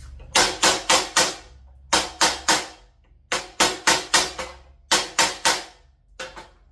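Steak knife whacked hard and repeatedly against a block of wood: about seventeen sharp knocks in quick runs of two to five. It is an abuse test of whether the edge takes damage and the handle loosens.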